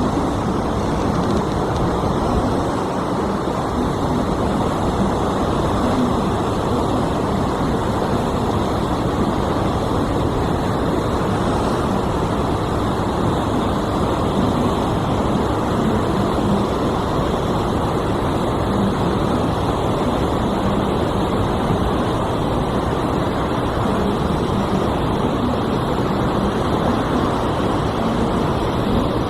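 Steady, unbroken engine drone and rushing noise of the river motor ship Princess Annabela under way, with a faint hum running through it.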